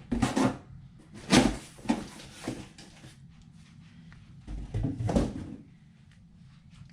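A paint box being put away: a series of knocks and clunks, the loudest about a second and a half in and another cluster around five seconds, like a drawer or cupboard being opened and shut.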